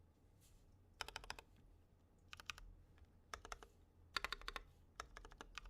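Typing on a Tokyo60 mechanical keyboard with lubed Easter Bois tactile switches (mint Yok Panda housings, Halo True stems, 72g springs), GMK doubleshot keycaps and a sorbothane-dampened case. The keys go down in short quick runs of keystrokes with brief pauses between them.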